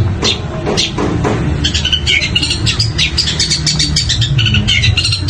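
Long-tailed shrike (cendet) singing: sharp, quickly repeated calls about three a second, then from about a second and a half in, a dense run of rapid chirps and twitters.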